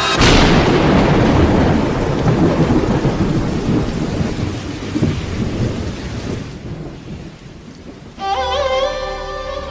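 A thunderclap with rain: a sudden loud crash that rumbles and fades away over about six seconds. About eight seconds in, music with held, wavering melodic tones starts.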